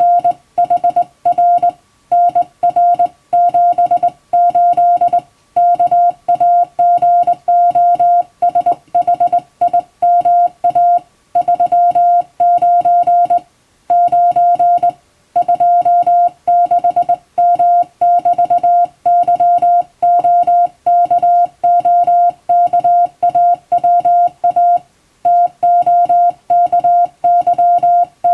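Hand-sent Morse code (CW): one steady mid-pitched tone keyed on and off in quick dots and dashes, with short pauses between letters and longer pauses between words. It is English-language Morse sent in telegram format.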